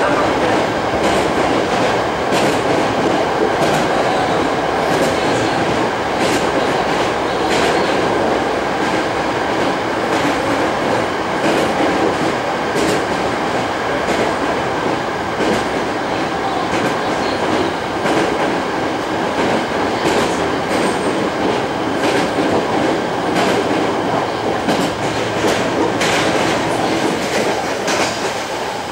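Hankyu 8000 series electric multiple unit running at speed, heard inside the passenger car: a steady rumble and hiss of wheels on rail, with wheels clicking over rail joints every second or two.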